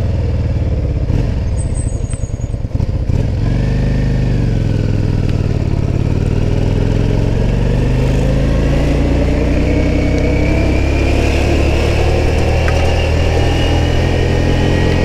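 Yamaha Drag Star 400's 399 cc V-twin engine pulling the bike along the road. Its note dips about three to four seconds in, then climbs slowly and steadily as the bike gathers speed.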